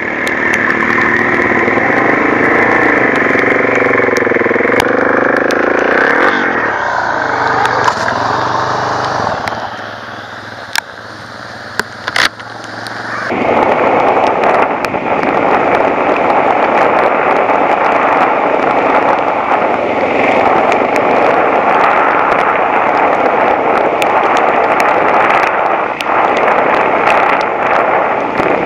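Suzuki DR-Z400S single-cylinder four-stroke dirt bike engine being ridden on a trail, revving up and down. About a third of the way in it drops to a quieter run, with a couple of sharp knocks. It then pulls louder and steadier under throttle for the rest.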